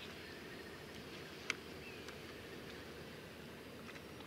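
Faint, steady outdoor background noise by the water, with a single sharp click about a second and a half in.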